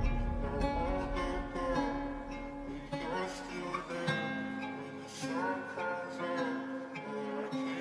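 Instrumental hip-hop beat without vocals: a melodic, guitar-like plucked-string line plays on its own, with the drums dropped out.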